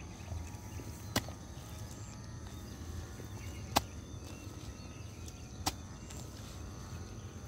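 A hand hoe chopping into soil around young papaya plants, three sharp strikes roughly two seconds apart. A faint steady high-pitched tone runs in the background.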